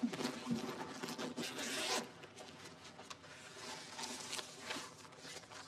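A zipper on a school bag pulled open for about two seconds, then fainter rustling of paper as exam sheets are taken out.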